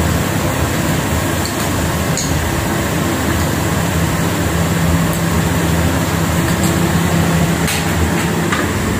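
Steady rushing background noise with a low, even hum, and a few light clicks of utensils against the pan and bowl.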